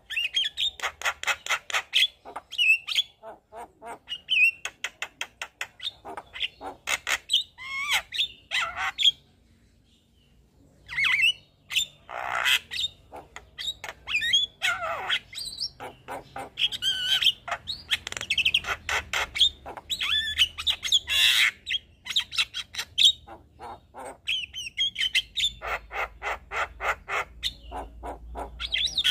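Javan myna singing a long, varied song: runs of rapid repeated chattering notes mixed with whistles and harsh squawks, broken by a pause about ten seconds in.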